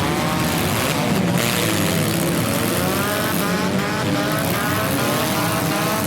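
Several compact cars' engines revving at once, their pitches rising and falling against each other over a dense bed of engine and crowd noise, with a brief surge of hiss about a second in.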